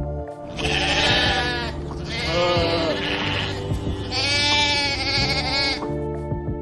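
Sheep bleating three times in long, quavering calls, over steady background music.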